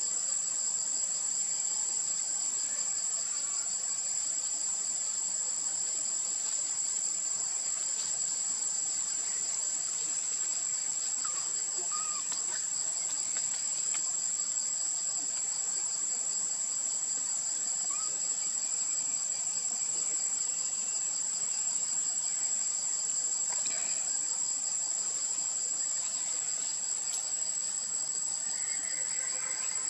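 Steady, high-pitched chorus of insects: a continuous shrill tone with a faster pulsing buzz just beneath it.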